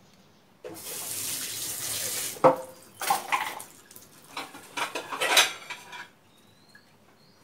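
Kitchen utensils clinking and knocking against dishes and a clay mortar, after a rushing hiss that lasts nearly two seconds near the start.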